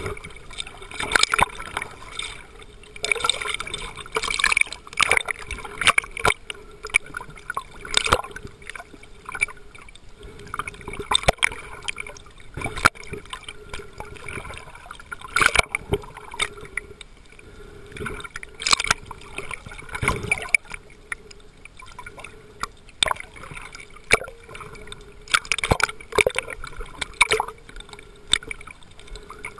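Water sloshing and gurgling around an underwater camera as a swimmer moves it, in irregular surges every second or two with sharp clicks and knocks.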